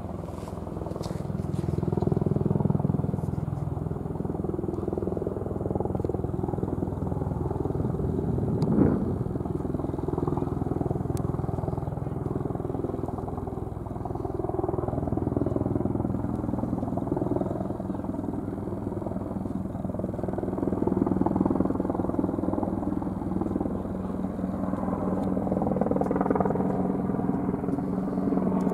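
Aircraft engine droning overhead, growing louder and softer as it moves across the sky. There is one short knock about nine seconds in.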